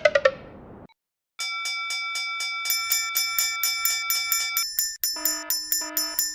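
Animated railway level-crossing warning bells ringing. A brief run of strikes falls in pitch, then after a short break a steady fast clanging of about four strikes a second begins. Just after five seconds it changes to a lower-pitched bell striking a little more slowly.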